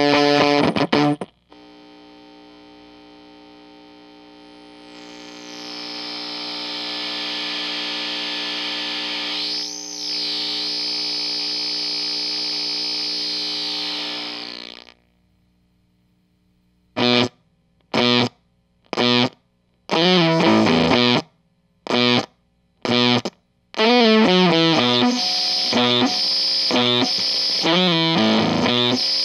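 Electric guitar through a Bliss Factory fuzz pedal. A fuzzy riff stops a second in, then a sustained fuzz drone with many overtones swells, swoops up and down in pitch about ten seconds in, and cuts off abruptly as the gate is turned up. After a short silence come short choppy bursts of fuzz, and continuous fuzzy playing resumes near the end.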